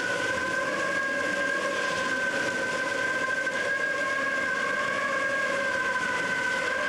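Hurricane-force wind howling steadily: a whistling moan of several held tones over a rushing hiss.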